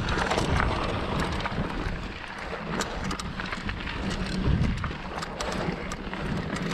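Mountain bike riding down a dirt trail: steady wind rumble on the microphone and tyre noise, with frequent sharp clicks and rattles from the bike over bumps.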